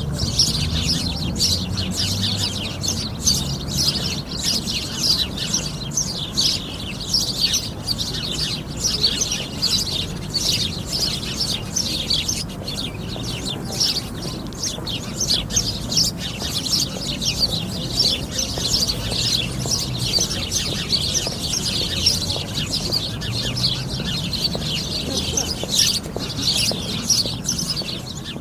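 A flock of sparrows chirping continuously, many short calls overlapping, over a low rumble.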